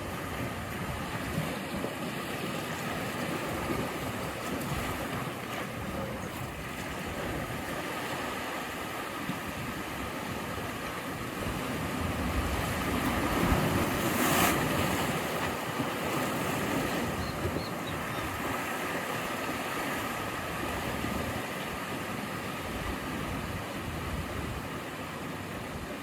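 Sea waves surging and washing in as a steady rush, with one wave building and breaking louder near the middle.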